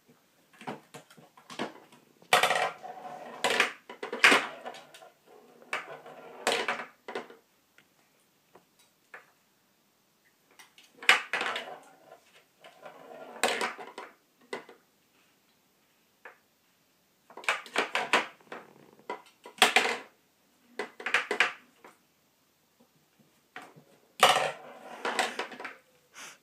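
Small pool balls on a toy tabletop pool table clacking together and knocking against its wooden sides as a cat paws them about. The clacks come in four separate bursts with quiet spells between.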